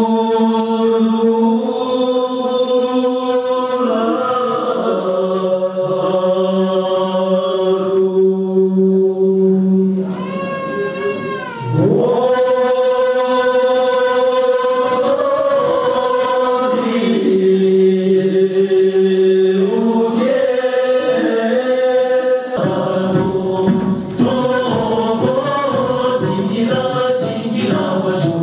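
A mixed group of men and women singing a Tibetan folk song together in long held notes, with one voice sliding up and back down on a single note about ten seconds in. Near the end the dance begins, and stamping steps join the singing.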